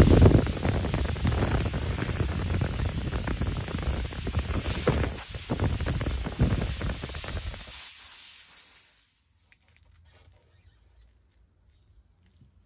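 Air hissing loudly out of a punctured car tire through the opened-up nail hole, cutting off about nine seconds in.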